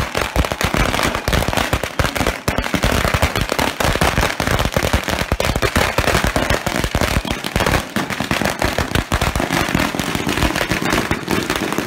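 A long string of firecrackers going off, a rapid, unbroken chain of sharp bangs many times a second.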